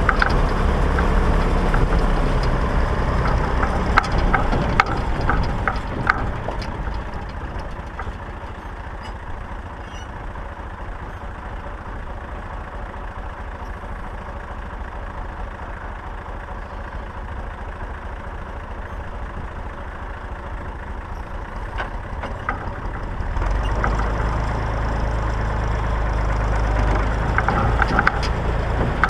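Massey Ferguson 135 tractor engine running, easing off for a stretch in the middle and coming up louder again about 23 seconds in, with short metal rattles near the start and near the end.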